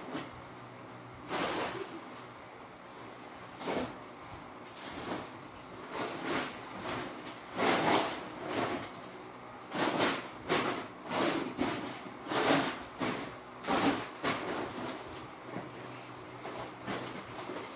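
A broom sweeping a floor: a series of short swishes, a few at first, then coming thick and fast through the middle, thinning out near the end.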